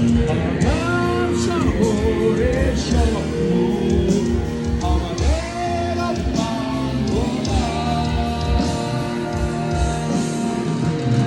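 Rock band playing live: electric guitars, bass and drums, with a melody line that bends up and down between notes.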